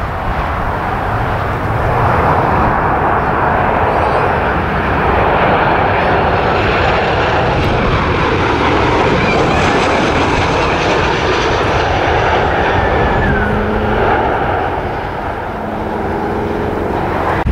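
Jet engines of a Delta Boeing 737 airliner on landing approach, passing close by: a loud, steady jet roar with a high whine over it. It builds over the first couple of seconds and eases somewhat near the end as the plane touches down.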